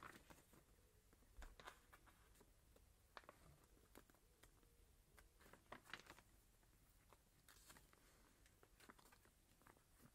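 Near silence, with a few faint soft rustles and ticks of paper as pages of an instruction booklet are handled and turned.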